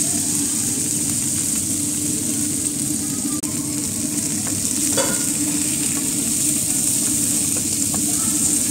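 Vegetables sizzling steadily as they fry in a pan, with a few short knocks of a wooden spatula against the pan as they are stirred.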